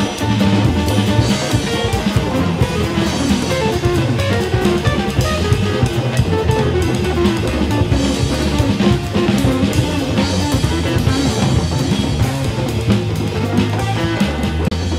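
Band music: a drum kit and guitar playing to a steady beat, with a strong bass line.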